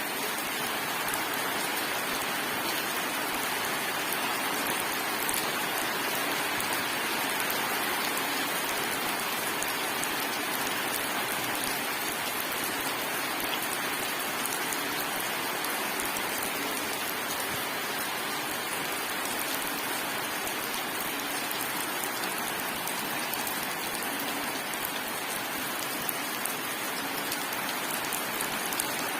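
Steady rain falling, the drops spattering on surfaces in an even, unbroken hiss.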